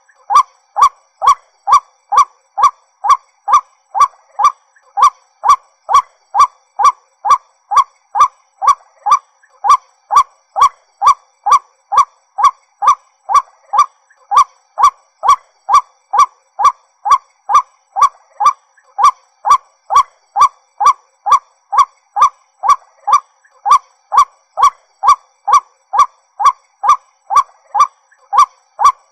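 White-breasted waterhen calling: a steady, monotonous series of short honking 'kwak' notes, about two a second, with no break.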